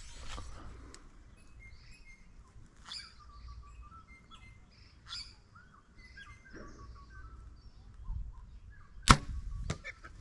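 A compound bow is shot about nine seconds in: one sharp, loud crack of the string's release, followed by a smaller knock about half a second later. Birds chirp faintly before the shot.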